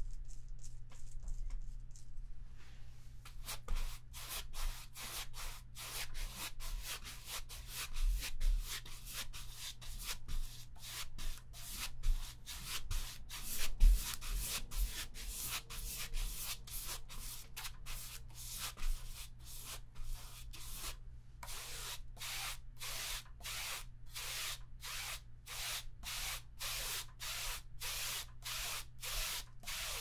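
A flat paintbrush scrubbing back and forth on a stretched canvas: a long run of short, scratchy strokes, about two a second, starting a few seconds in.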